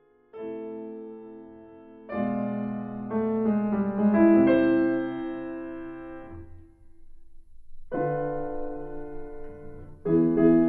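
Solo piano music: slow chords struck and left to ring and fade, dying away briefly past the middle before new chords come in near the end.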